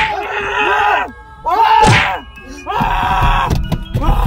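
Men yelling and shouting in fright, with two sharp slaps or whacks, one at the start and one about two seconds in, and duller thuds later as someone lashes out inside a car.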